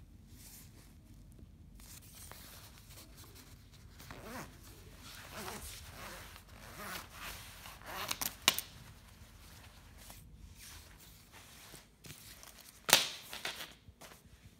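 Shiny nylon shell of a Herno lightweight down jacket rustling and crinkling as it is handled. A few sharp clicks stand out, one a little past halfway and the loudest near the end.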